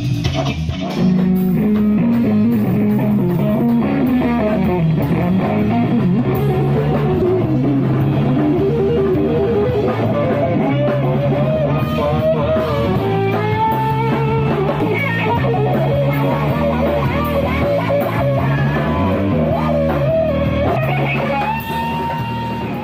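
Rock band playing: an electric guitar lead with bending notes over bass guitar and drum kit, ending on a held note.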